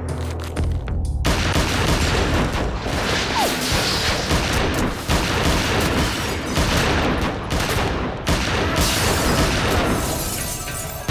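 Rapid pistol gunfire in a shootout, many shots and impacts in quick succession starting about a second in, over dramatic film music.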